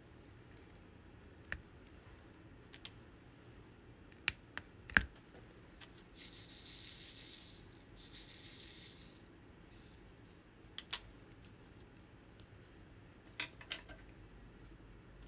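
Small, sharp plastic clicks and taps from diamond-painting drills and tools. About six and eight seconds in come two spells of dry, hissy rattling, each a second or more long.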